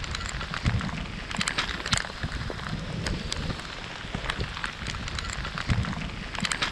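Rain falling: a steady hiss with irregular sharp taps of individual drops.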